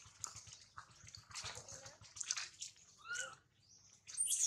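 Short high-pitched animal calls and chirps, several in a row, with the clearest, an arching squeal, about three seconds in, over a faint rustling hiss.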